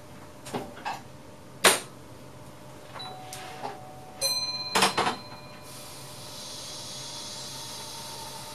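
Clicks and knocks from the controls in a VIRM double-deck train's driver's cab, the loudest about a second and a half in, with a short electronic tone a little past halfway. About six seconds in, a steady high hiss with a faint whine sets in.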